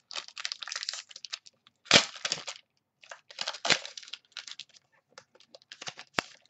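Foil wrapper of a pack of football trading cards being crinkled and torn open by hand, with two louder rips about two and three and a half seconds in and a sharp click near the end.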